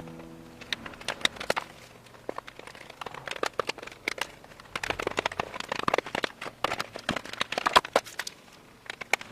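Irregular crinkling and crackling of material being handled by hand, with many sharp clicks.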